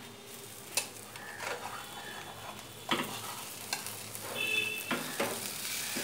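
Egg and diced peppers frying gently in a nonstick pan on a low flame, a soft sizzle under several sharp knocks and scrapes of a spatula against the pan as the set egg is broken up.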